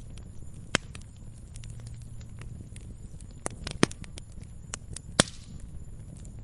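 Wood campfire crackling: sharp pops and snaps at irregular intervals over a low, steady rumble of flame. The loudest pops come about a second in, near four seconds, and just past five seconds.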